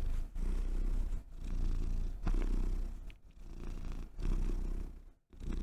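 Domestic cat purring, a low rumble that swells and breaks off about once a second as it breathes in and out, with a brief pause near the end.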